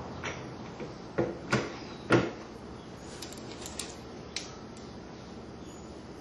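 Three sharp knocks, the last the loudest, followed by a few lighter clicks, from handling metal reloading tools at the bench.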